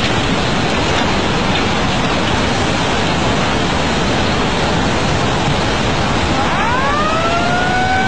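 Tsunami floodwater surging and churning past buildings and debris in a loud, steady rush. Near the end, a high tone rises and then holds.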